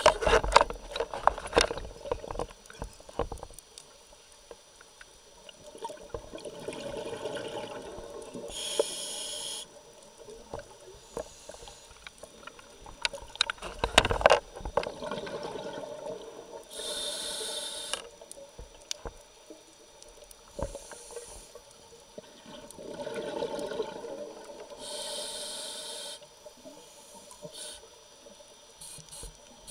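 Scuba regulator breathing underwater: slow breaths, each a long bubbling exhale and a short hissing inhale, about three in all. There are sharp clicks and knocks in the first few seconds and again about halfway.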